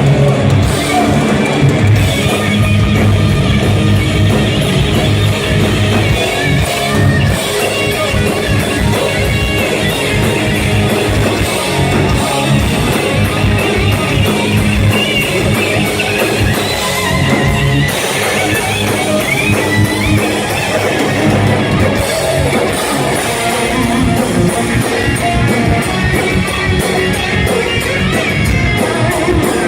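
A live hard rock band playing loud: an electric guitar leads with bending notes over drums and bass, with no singing.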